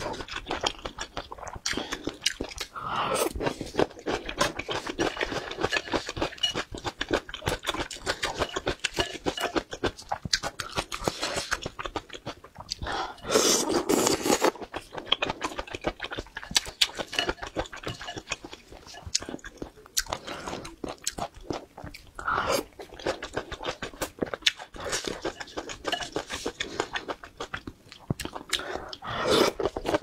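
Close-miked eating of skewered mala hot-pot foods (fish balls, tofu): chewing and biting as dense, rapid small wet clicks, with louder bursts about 3 seconds in, around 13–14 seconds, at about 22 seconds and near the end.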